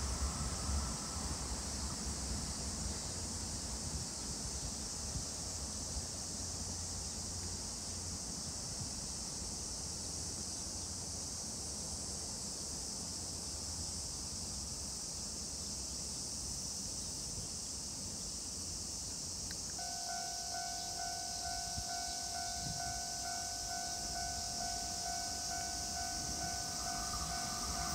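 Trackside ambience by an electrified railway. A passing train's low rumble fades out in the first second, over a steady high hiss. About two-thirds of the way in, a pulsing two-tone electronic warning starts and keeps sounding: a level-crossing alarm for the next train approaching.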